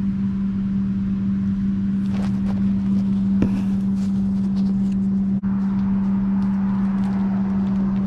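A steady low hum from a running machine, with a few light clicks and knocks of parts being handled.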